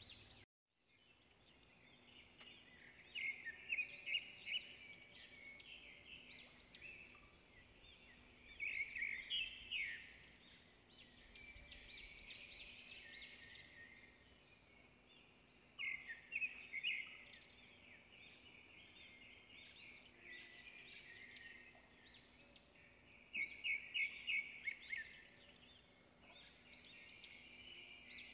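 Bird-like chirping in quick bursts that recur every six or seven seconds, over a faint steady hum.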